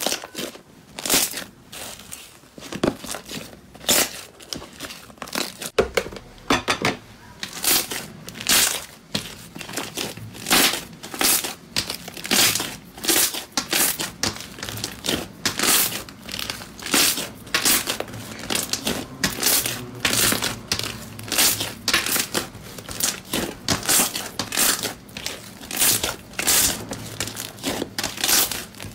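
Thick, stringy 'cotton' slime being squeezed, stretched and kneaded by hand, giving a steady run of sharp crinkly crackles and pops, about one or two a second.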